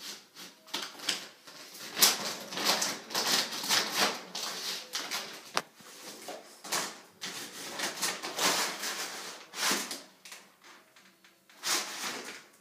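Empty dog food bag crinkling and rustling in irregular bursts as a puppy paws and bites at it.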